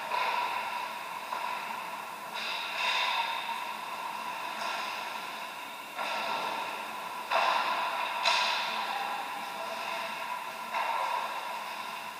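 Ice hockey game in an echoing indoor rink: a steady hum with about half a dozen sudden rushes of scraping noise that fade away slowly, typical of skates cutting the ice.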